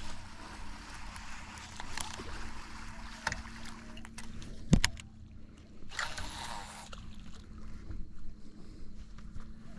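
Casting with a baitcasting reel. A sharp click a little before the middle is the loudest sound, then about a second of the spool whirring as line runs out, over a steady low hum and hiss.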